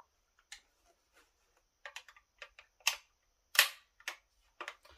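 Irregular sharp clicks and clacks of hard plastic and metal parts from handling a new ECHO CS-4310SX chainsaw, the two loudest knocks about three and three and a half seconds in.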